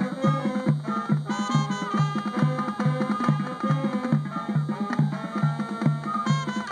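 Marching band playing live: brass with sousaphone and drums in a lively, steady-beat tune, the low bass line repeating about two notes a second under the horns and percussion.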